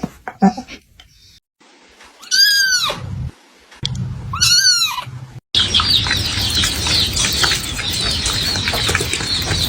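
Bird calls: two loud squawks about two seconds apart, then from about five and a half seconds in, a dense, continuous chatter of many birds chirping.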